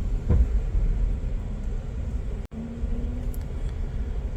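Low rumble of a passenger train car rolling slowly into a station, heard from inside the car, with a single knock about half a second in. The sound cuts out for an instant a little past the middle.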